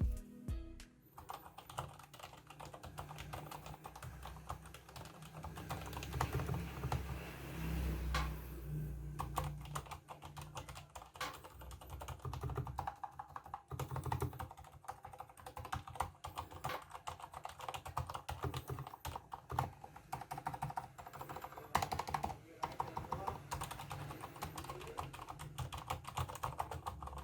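Continuous fast typing on a Durgod Fusion 65% mechanical keyboard with Cherry MX Silent Red switches. The key presses are soft and non-clicky.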